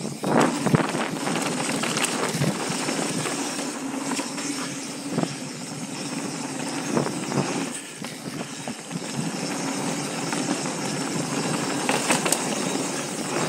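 Mountain bike ridden fast down a dirt downhill trail: a steady rush of wind on the helmet-camera microphone with tyre noise on dirt, and occasional short clatters of the bike over bumps.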